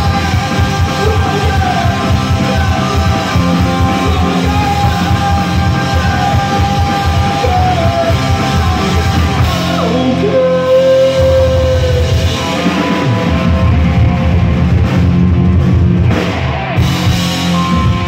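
Punk rock band playing live through the PA: distorted electric guitars, bass and drum kit, with sung vocals. The drums and bass drop back for a couple of seconds about ten seconds in, then come back in.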